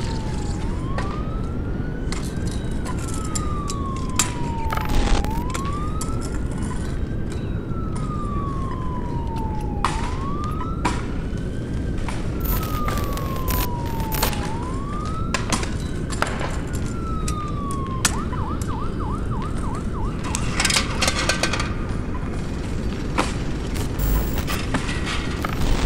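An emergency vehicle siren in its slow wail, rising and falling about every five seconds, switches to a fast yelp about eighteen seconds in and then stops. Underneath runs a steady low rumble with scattered clicks and knocks.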